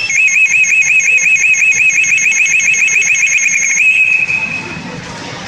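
Pachinko machine's electronic sound effect: a rapid warble of short rising beeps, about seven a second, for nearly four seconds, then one held tone that fades away.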